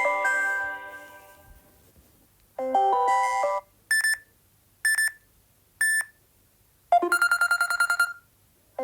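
Samsung Galaxy S9 ringtones previewed one after another, each cut short. A melody dies away, then come a short chime phrase, three single high beeps about a second apart, and a fast pulsing beep lasting about a second.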